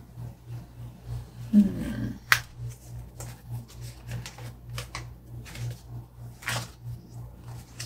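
Planner stickers being handled and pressed onto a paper page: scattered light clicks and paper ticks, with a brief low vocal sound about two seconds in.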